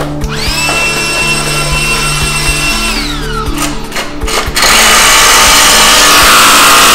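Cordless Ryobi jigsaw spinning up to a steady whine, running for a few seconds and winding down; then, from about four and a half seconds in, a loud, even cutting noise as the blade goes through a laminate flooring plank. Background music with a steady bass line runs underneath.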